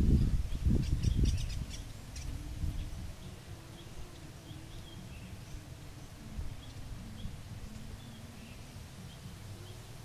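Faint short bird chirps scattered through low outdoor background noise. A louder low rumble with a few clicks fills the first two seconds, then dies down.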